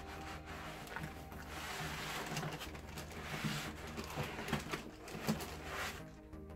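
Rustling and scattered knocks of box packaging being handled as the projector is taken out of its box, over steady background music.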